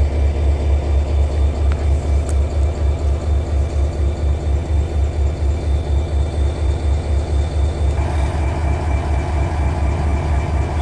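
EMD SD40-2 diesel-electric locomotive idling: a deep, steady low throb that pulses several times a second. A little more midrange rumble comes in about eight seconds in.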